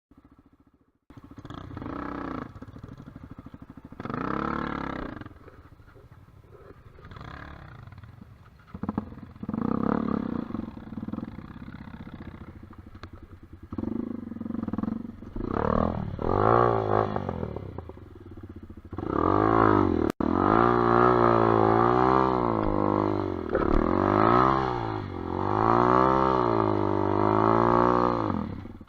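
Dirt bike engine revving up and down on a rough trail, the revs rising and falling repeatedly; it is quieter and uneven at first, then loud with quick, rapid rev swings from about two-thirds of the way through.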